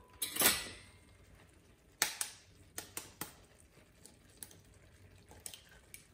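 A clatter at the start, then a scatter of light clicks and taps of kitchen utensils against a pan, several in quick succession around the middle.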